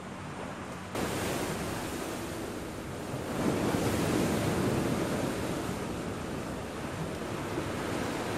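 Sea surf washing onto a sandy beach, a steady wash of water that jumps louder about a second in and swells with a breaking wave around the middle, with wind buffeting the microphone.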